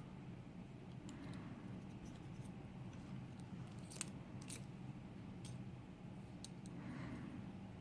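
A few faint, sharp metallic clicks and scrapes of small tools probing the pin chambers of a disassembled Millenco Magnum Euro cylinder lock, over a steady low hum.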